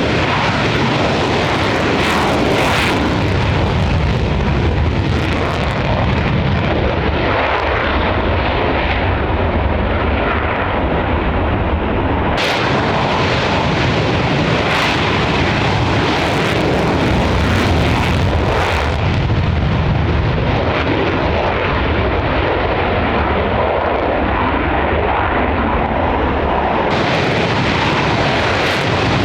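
Military jet aircraft engine noise, loud and steady for the whole stretch, with sharp crackles scattered through it. The treble falls away for most of the middle and returns near the end.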